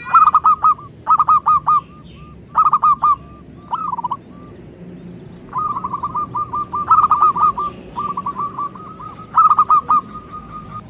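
Zebra dove (local perkutut) cooing: short groups of three to five quick coos repeated every second or so, then two longer runs of rapid coos in the second half.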